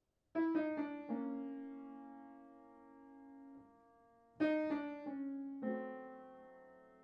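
Background piano music: a quick run of four notes that rings on and fades, then a second run of four notes about four seconds in.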